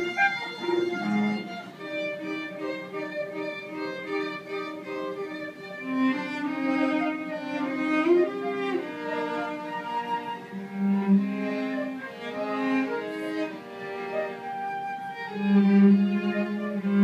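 Live trio of flute, violin and cello playing a Studio Ghibli film tune: a melody over long held low cello notes.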